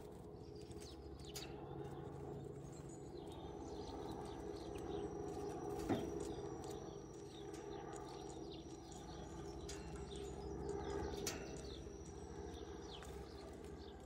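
Great tits pecking at a wire-mesh peanut feeder: irregular light taps and clicks of beaks and feet on the metal, with a sharper tap about six seconds in and another near eleven seconds. A steady low hum runs underneath.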